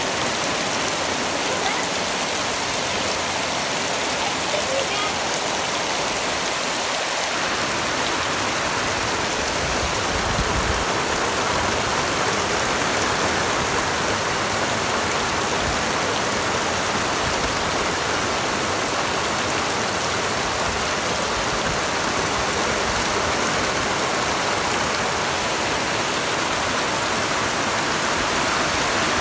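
Heavy rain pouring steadily onto pavement and concrete, a dense even hiss that grows fuller about seven seconds in.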